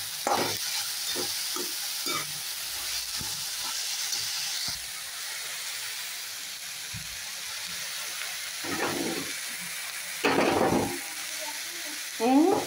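Chopped onions, chillies and ground spices sizzling in hot oil in a steel kadhai, stirred with a perforated steel spatula that scrapes against the pan in short strokes. This is the masala-frying stage of the dish. A couple of louder scrapes come near the end.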